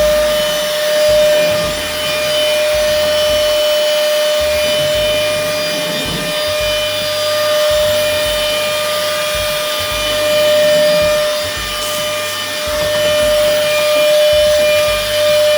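Xiaomi Deerma VC25 Plus handheld cordless vacuum cleaner running with a steady high whine, its nozzle rubbing across a surface in uneven strokes.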